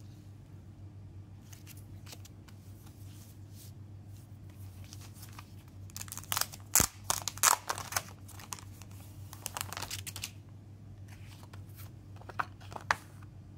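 Paper and thin cardboard being handled: a mini-LP cardboard CD sleeve and its paper insert rustling and crinkling in quick bursts, loudest from about six to ten seconds in, with a few more near the end, over a faint steady low hum.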